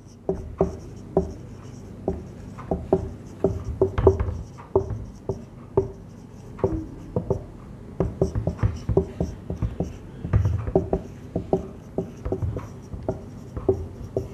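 Marker pen writing on a whiteboard: a quick, irregular run of short strokes as the tip is drawn across the board, forming letters.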